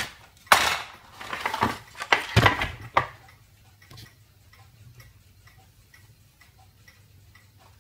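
Plastic one-way gear (ratchet) mechanism in a capsule coffee machine's top assembly, turned by hand: a few louder plastic knocks and rattles in the first three seconds, then a run of light, even clicks at about four a second as the pawl skips over the teeth.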